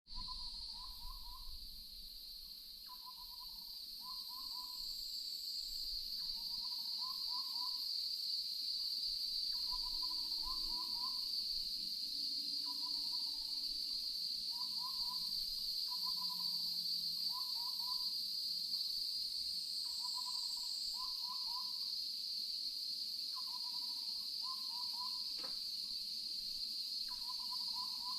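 An owl hooting in short groups of two or three notes, repeated about every two seconds, over a steady high-pitched chorus of insects.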